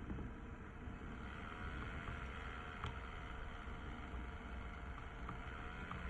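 Steady low background hum and rumble with faint steady tones, and a few faint clicks.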